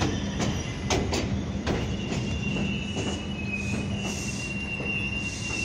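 R142 subway train slowing to a stop alongside the platform, with wheels clicking over rail joints and the clicks spacing out as it slows. A steady high wheel and brake squeal and a low hum run underneath.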